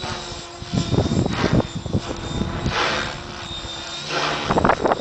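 Compass Atom 6HV radio-controlled helicopter flying overhead, its steady motor and rotor whine carrying through. Louder rushing surges of rotor noise come about a second in and again near the end.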